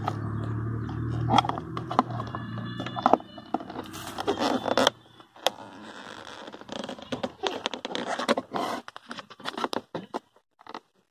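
Flathead screwdriver scraping and clicking against the plastic door-panel trim around a Chevrolet Impala's power-window switch as the trim is pried loose: a run of irregular scrapes, clicks and taps. A steady low hum in the first three seconds stops abruptly.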